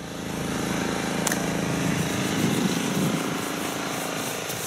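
Steady outdoor urban background noise with an engine-like rumble, as of nearby traffic.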